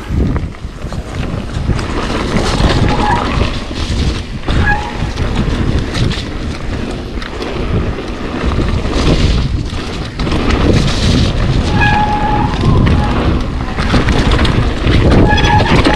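Kona Process mountain bike running fast down a dirt forest trail: tyres rolling over dirt and leaves, and the bike rattling over bumps, with wind buffeting the microphone. A few short squeals come through, about three seconds in, near five seconds, around twelve seconds, and near the end.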